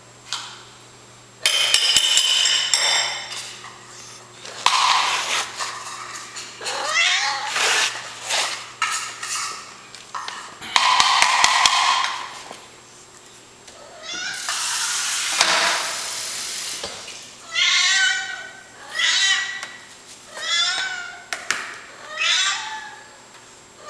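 Flame-point cat meowing over and over, begging for its food: several long, loud meows, then near the end a string of short meows about a second apart.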